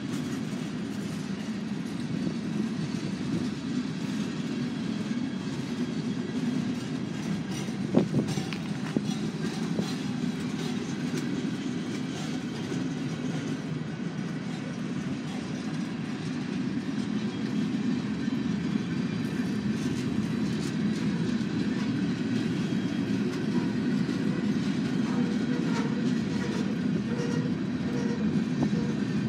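Freight cars of a long train rolling past: a steady rumble of steel wheels on the rails with clicking over the rail joints, and one sharp knock about eight seconds in.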